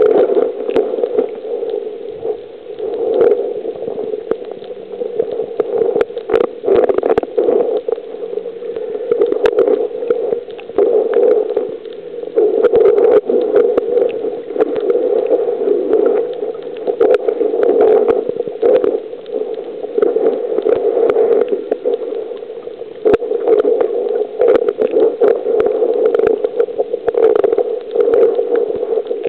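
Underwater water noise heard through a submerged camera: a loud, muffled wash of moving water that swells and fades every second or two as the snorkeller swims, with scattered sharp clicks.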